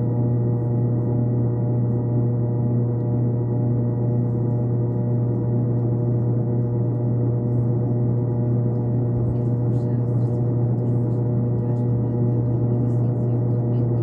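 A steady drone of several held tones, loudest in a low hum and unchanging throughout, like a sustained gong or ambient music bed.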